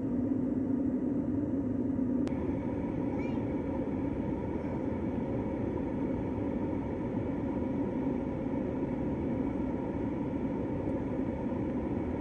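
Steady cabin noise of an Airbus A380 in cruise, the rush of engines and airflow heard at a window seat. A click about two seconds in, after which the low hum is a little weaker.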